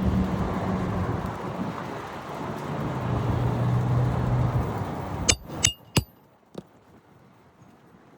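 Steady rumble of passing road traffic for about five seconds, fading out, then three or four quick, sharp metallic clinks that ring briefly.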